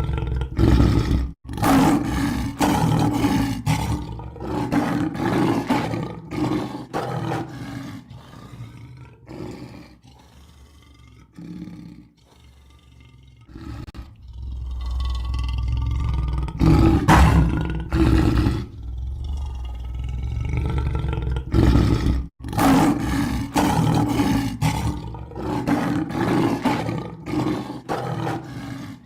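Lion roaring over and over in loud bouts, with a quieter lull partway through. The sound breaks off for an instant twice.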